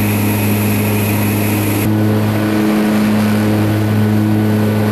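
Propeller aircraft's engines droning steadily, heard from inside the cabin: a loud, even hum with a constant rush of air noise. The hiss shifts abruptly about two seconds in.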